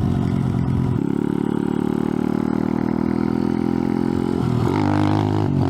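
Icebear Champion 125cc single-cylinder four-stroke mini bike engine running at steady revs, then revving up about four and a half seconds in, dipping briefly and climbing again near the end.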